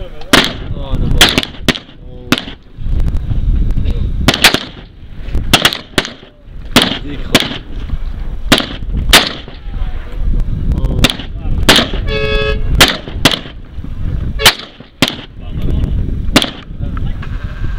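Gunshots in quick, irregular succession, roughly one or two a second and sometimes in close pairs, as several guns fire downrange at a hillside. A low rumble runs underneath, and a short pitched tone sounds about twelve seconds in.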